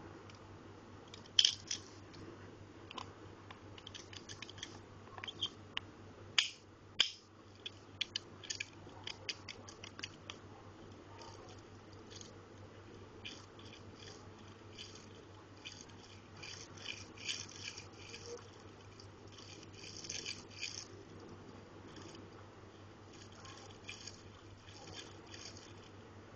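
Small handling noises from a die-cast toy car and its packaging: irregular clicks, taps and crinkles, with the sharpest clicks about a second and a half in and again around six to seven seconds. A steady low electrical hum runs underneath.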